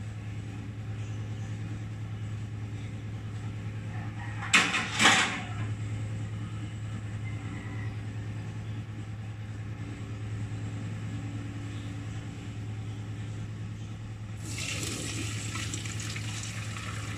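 Cooked spaghetti and its hot cooking water poured from a pot into a plastic colander in a stainless-steel sink, a steady rush of splashing, draining water that begins a few seconds before the end. Earlier, about five seconds in, two loud sharp clatters stand out over a steady low hum.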